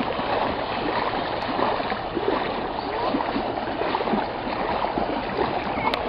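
Steady, irregular splashing of several children running and wading through shallow river water.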